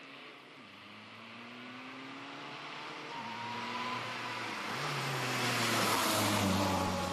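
Fiat Stilo rally car approaching at speed and passing close by, its engine note climbing through the gears with a couple of upshifts, growing louder and loudest just before the end.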